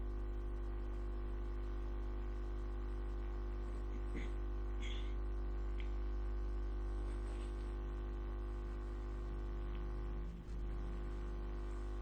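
Steady low electrical hum, like mains hum, with a few faint light clicks a few seconds in.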